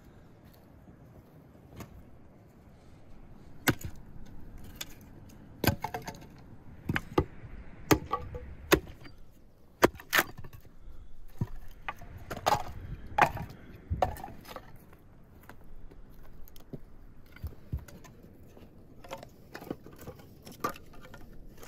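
Axe splitting firewood into kindling on a wooden chopping block: a series of sharp chops and cracking splits, with split pieces knocking together. The strikes come thickest in the middle and thin out to lighter knocks near the end.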